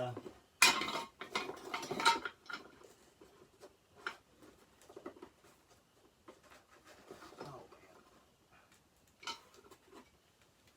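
Light clicks, knocks and rattles of small metal parts and tools being handled on a workbench, loudest in a sharp click about a second in and a cluster over the next second, then only a few faint ones.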